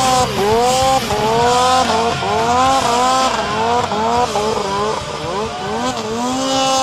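Mountain snowmobile's two-stroke engine revving hard in deep powder, its pitch rising and falling over and over, about once a second, as the throttle is worked on and off.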